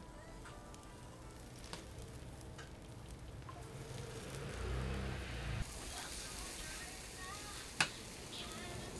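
Batter sizzling on a hot cast-iron bungeoppang (fish-shaped pastry) mould as it is poured in, the sizzle growing louder about halfway through. A single sharp metallic clank near the end as the hinged mould is shut.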